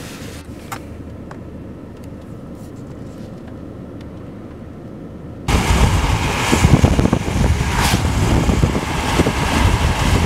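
Road and wind noise from a car driving at speed, heard from inside the car. It comes in abruptly about five and a half seconds in, after a much quieter stretch of low rumble.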